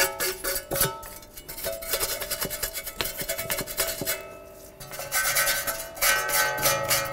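Light plucked-string background music, under the rapid scratchy strokes of a small brush scrubbing rust flakes off the steel brake dust shield behind a wheel hub.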